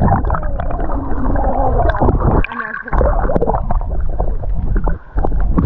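Muffled gurgling and sloshing of water, heard with the microphone under the surface, dropping away briefly about two and a half seconds in.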